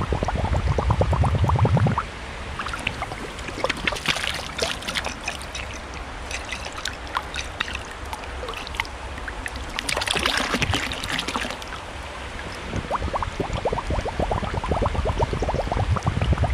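Old glass pint milk bottle being swilled out in canal water to clear the sludge from it. Water gurgles in its neck at the start and again near the end, with splashing bursts about four and about ten seconds in.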